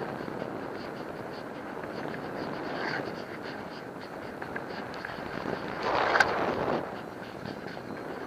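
Wind rushing over an action camera's microphone during paraglider flight, steady, with a louder gust about six seconds in.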